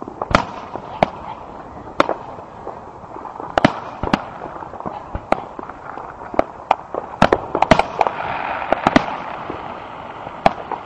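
Fireworks display: a string of sharp bangs at irregular intervals, coming thick and fast from about seven to nine seconds in.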